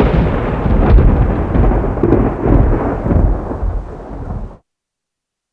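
Loud intro sound effect of a rolling, booming rumble with scattered crackles. It fades and then cuts off suddenly about four and a half seconds in.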